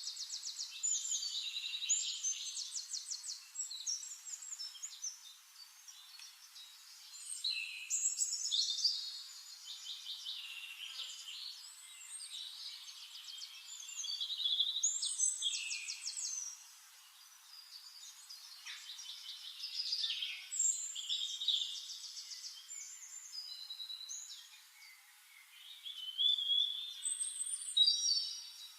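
Songbirds singing: varied chirps and fast trills, with a louder song phrase about every six or seven seconds and softer chirping in between.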